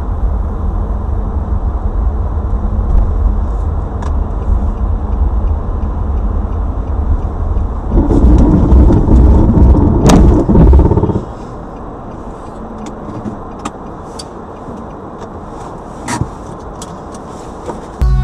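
Car driving, a steady low rumble of engine and road noise. It grows louder for about three seconds past the middle, then drops suddenly to a quieter rumble with a few scattered clicks.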